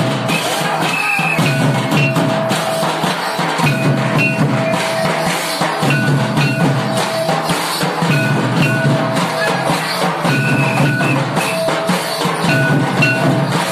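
Santali Karam dance music: barrel-shaped hand drums beating a fast, steady rhythm, with a high held tone that sounds in repeated phrases over the drumming.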